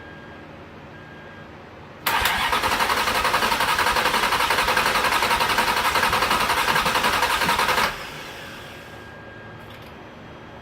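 Ferrari 360's V8 being cranked on its starter: a loud, evenly pulsing run of about six seconds that begins about two seconds in and stops suddenly.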